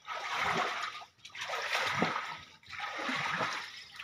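Splashing in deep floodwater as a person wades chest-deep and sweeps their arms through it, in three surges about a second apart.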